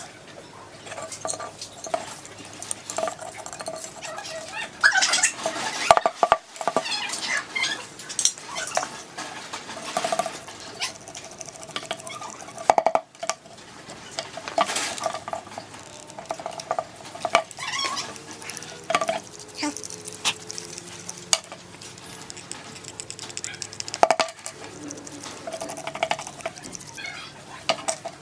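Metal tools and parts being handled: irregular clinks, taps and scrapes.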